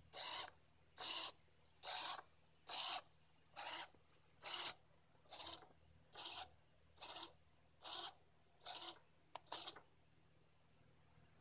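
Small hobby RC micro servos whirring in short, even bursts of gear noise, a little more than once a second, as they are driven to move again and again. The bursts stop with two quicker ones near the end.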